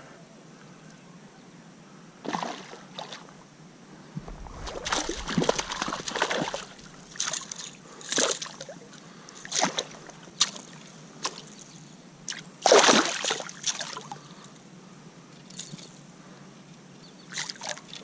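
Water splashing and sloshing as a small smallmouth bass thrashes at the surface while it is brought in and handled. The splashes come irregularly, starting about two seconds in, with the loudest near the end and a last couple just before the end.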